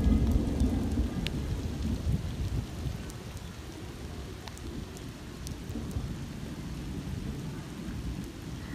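Steady rain falling on wet ground and puddles, with scattered drop ticks. A low rumble of thunder is loudest at the start and dies away over the first few seconds.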